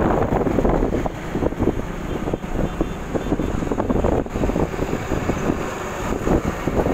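Wind buffeting the microphone over the rumble of a moving vehicle: loud, gusty, uneven noise.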